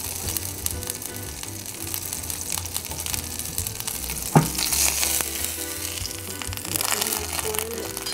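Butter sizzling as it melts in a hot stainless steel frying pan, a dense steady crackle, with one sharp click about four seconds in.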